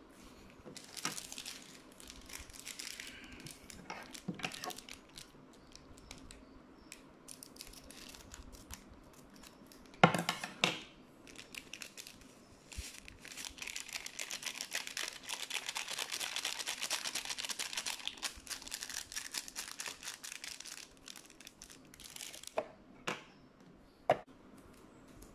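Plastic packaging of a cup of instant noodles, with its seasoning sachets, crinkling and tearing as it is handled. There is a long stretch of dense crinkling in the middle, a sharp knock about ten seconds in, and a few knocks near the end as the paper lid is pressed down.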